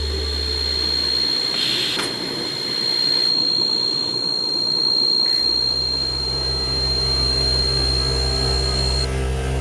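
Electronic drone: a steady high sine tone over a hiss, stopping near the end, with a deep low hum that drops out about a second in and returns about halfway through.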